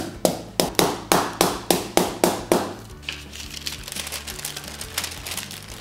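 Wooden meat mallet pounding a veal fillet through baking paper on a wooden board, quick even blows about five a second, flattening the meat thin. The blows stop about two and a half seconds in, giving way to soft crinkling of the baking paper as it is handled.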